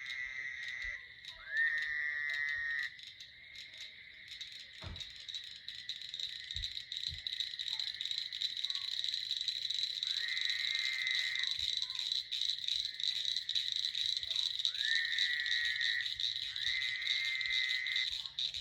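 A frog giving trilled calls about a second long, five times, over a steady high-pitched chorus of calling frogs and insects.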